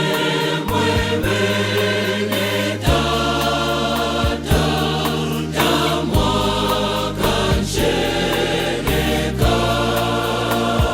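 Choir singing a gospel song over a steady beat with a sustained bass line.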